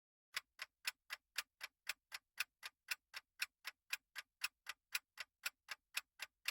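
Countdown-timer clock ticking sound effect: a steady run of sharp ticks, about four a second.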